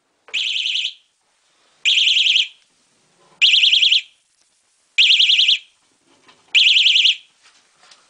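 Battery bicycle security alarm sounding five loud, short bursts of a fast-warbling high-pitched tone, about a second and a half apart. It is set off by the bike's saddle being shaken.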